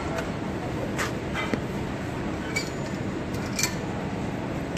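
Steady gym background noise with four short metallic clinks and knocks of equipment spread over a few seconds.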